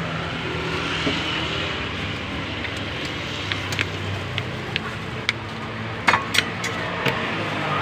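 Light clinks of utensils and dishes as food is served, a scattered run of them in the second half, two louder ones with a short ring, over a steady background noise with a low hum.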